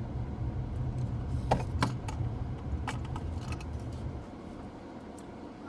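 Steady low rumble of a car engine running, which stops suddenly about four seconds in. A few light, sharp taps sound a second or two in.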